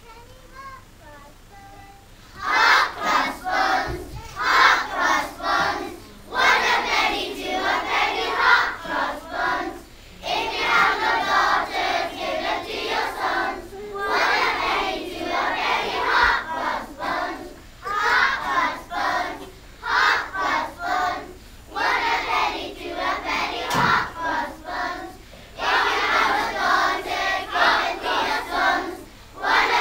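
A large group of schoolchildren singing loudly together in short phrases with brief breaths between them, joining in about two seconds in after a faint single voice.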